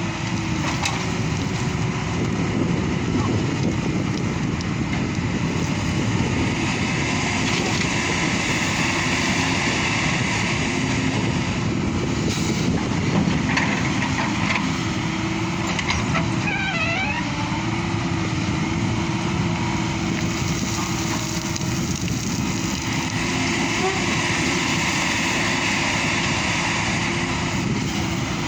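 Hyundai 220 LC crawler excavator's diesel engine running steadily under load while it works, with its hydraulics straining as it digs and loads a truck.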